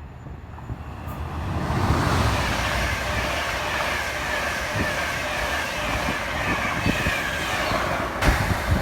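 Class 67 diesel locomotive passing, its EMD 12-cylinder two-stroke engine and wheels on the rails building up over about two seconds into a loud, steady rush of noise. Low buffeting comes near the end.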